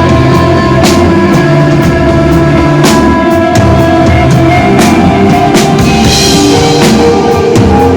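Instrumental desert rock played live on electric guitar and drum kit, with sustained guitar tones over a steady beat of drum and cymbal hits.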